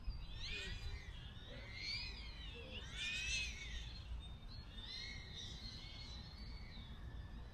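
FPV freestyle quadcopter's motors and propellers whining in the distance, the pitch rising and falling in several swells as the throttle changes. The propellers are bent and scratched, which makes it extra noisy.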